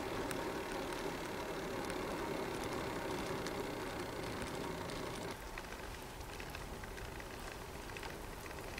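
Riding noise from a bicycle-mounted camera: a steady rush of wind over the microphone mixed with tyres rolling on an asphalt lane, with fine ticking on top. It drops a little quieter about five seconds in.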